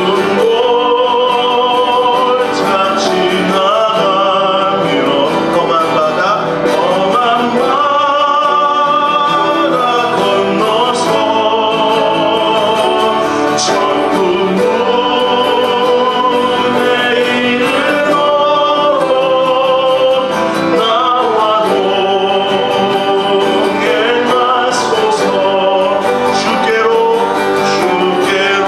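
A man singing a Korean hymn in Korean, accompanying himself on a strummed acoustic guitar.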